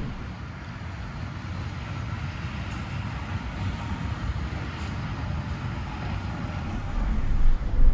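Steady vehicle noise, low and even, getting louder near the end.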